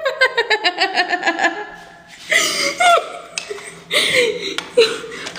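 A person laughing in a quick, pulsing run for about two seconds, followed by a few short bits of voice.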